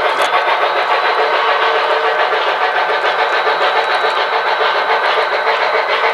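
Model train running on a layout: a steady mechanical running sound with a faint high whine.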